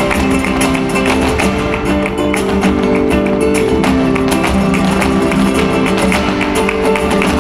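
Flamenco guitars playing a garrotín, with many sharp percussive taps from the dancers' heeled shoes striking the stage.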